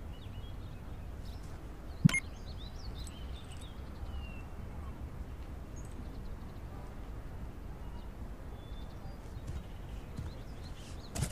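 Outdoor ambience: a steady low rumble with scattered faint bird chirps, and one sharp click about two seconds in.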